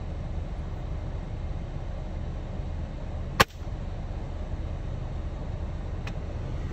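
.22 calibre PCP air rifle fired once from inside a vehicle, about halfway through: a single sharp crack, the loudest sound, over the steady low rumble of the idling vehicle. A much fainter click follows near the end.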